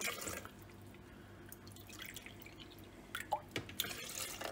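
Faint water dripping from a plastic measuring cup into a plastic blender jar of mint leaves, with a few louder drips and splashes in the last second and a half.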